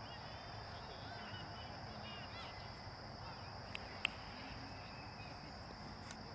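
Faint, distant shouts and calls of young players and spectators, over a steady faint high hiss, with one sharp knock about four seconds in.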